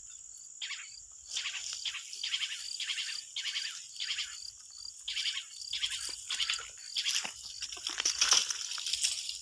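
Crickets chirping: a steady high trill with a regular chirp about twice a second. Over it, from about a second in, repeated rustling and crunching in dry leaf litter and grass, loudest near the end.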